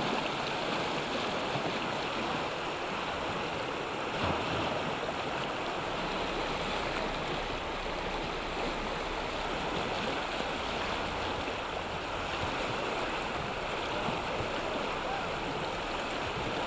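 Whitewater river rapids rushing steadily, a constant churning of fast-flowing water.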